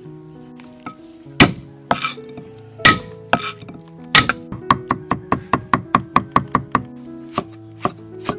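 A cleaver striking a thick wooden chopping block, over background music. Four heavy whacks come in the first half, then a fast, even run of chops at about five a second, and a few more spaced chops near the end.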